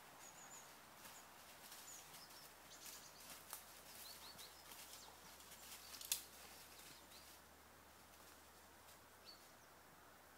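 Near silence in the forest: a few faint high bird chirps and scattered faint crackles, with one sharper click about six seconds in.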